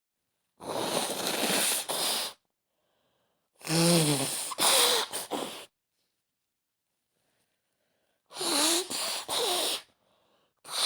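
A woman blowing her nose hard once, then two fits of sneezing several seconds apart, each with voiced gasps and sneezes in quick succession. Another sneeze starts at the very end.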